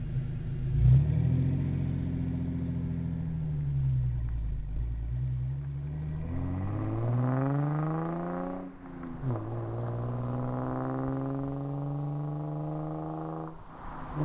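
V6 engine exhaust through a Flowmaster 10 Series single-chamber muffler. It gives a short rev about a second in and settles, then the car accelerates with the pitch climbing. The pitch drops sharply at an upshift about nine seconds in, climbs again through the next gear and falls away near the end.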